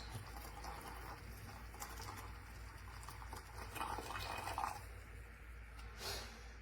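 Coffee being poured from a small aluminium moka pot's spout into a cup, a faint liquid patter with a few small knocks and a short louder sound about six seconds in. The undersized spout dribbles and spills.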